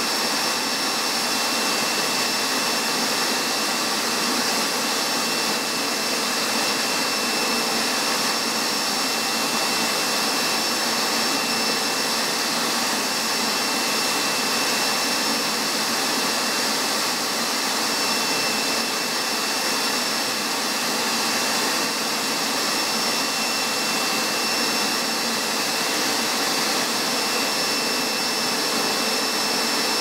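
Hoover MAXExtract SteamVac Dual V carpet extractor running, its suction motor drawing through the hose and hand tool held on wet carpet: a steady rushing noise with a high, even whine.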